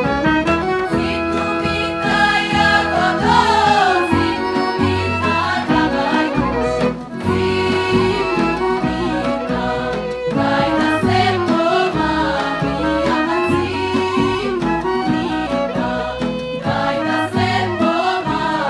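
Women's folk choir singing a Serbian folk song together, with instrumental accompaniment and a pulsing bass beat under the voices.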